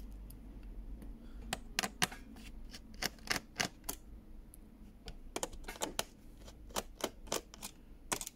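Irregular sharp clicks and taps, roughly two a second, of a precision screwdriver working screws out of a laptop's plastic bottom case.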